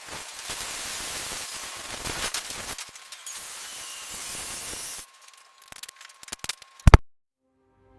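Steady hissing noise for about five seconds, then a few scattered clicks and one sharp, loud hit about seven seconds in, followed by silence.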